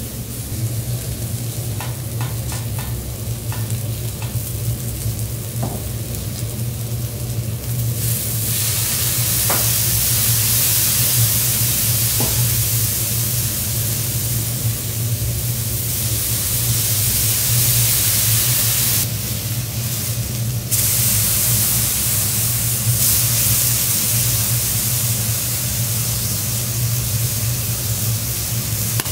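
White fish fillets frying on a hot teppanyaki iron griddle: a steady sizzle that grows louder about eight seconds in and dips briefly for a couple of seconds past the middle, over a steady low hum.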